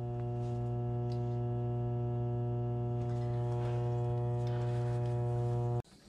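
Coleman DGAA gas furnace giving a steady electrical hum, a low buzzing tone with many overtones, while it tries to start. It stops abruptly near the end.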